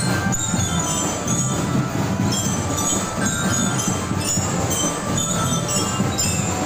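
A school marching drum band playing: a dense drum pattern underneath with short, high, ringing bell notes repeating over it.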